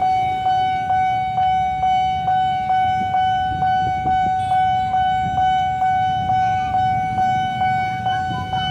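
Railway level-crossing warning bell ringing steadily, about two strikes a second, each ringing out before the next, over a low rumble.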